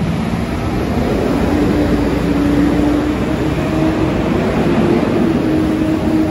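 Street traffic on a slushy road: heavy vehicles' engines running steadily and tyres on wet slush as a box truck and city buses move off, with an engine drone that rises slightly in pitch partway through.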